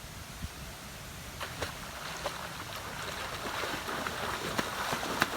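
Water sloshing and splashing, growing louder, with scattered sharp knocks.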